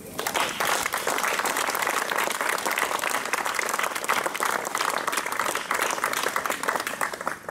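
Crowd applauding: many hands clapping together, starting suddenly and going on for about seven seconds.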